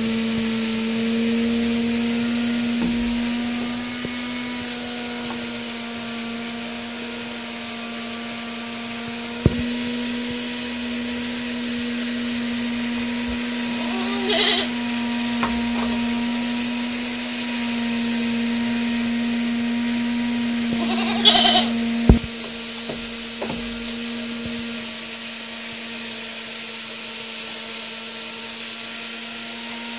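Goats in a barn pen bleating twice, short calls about seven seconds apart, over a steady low machine hum, with a couple of sharp knocks.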